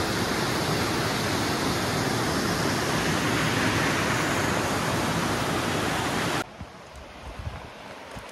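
Small woodland waterfall cascading over a rock ledge into a creek pool: a loud, steady rush of water close by. About six seconds in it cuts off abruptly to a quieter rush of a river running over rocks.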